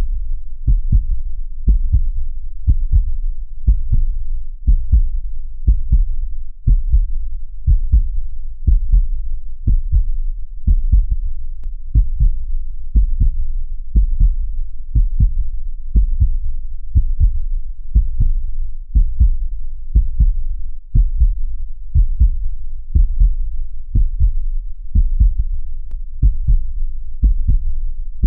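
Heartbeat sound: a steady, even rhythm of deep, low thumps that keeps going without a break.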